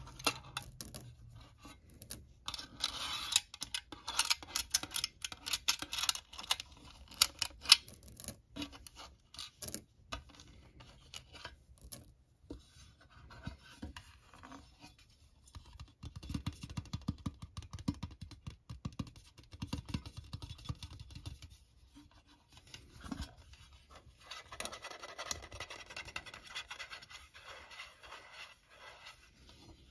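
Small magnetic ferrite pebbles clicking and clattering against one another and against a metal tin as they are handled, with scratching and scraping. The clicks are densest in the first few seconds and again near the end, with a stretch of lower rubbing in between.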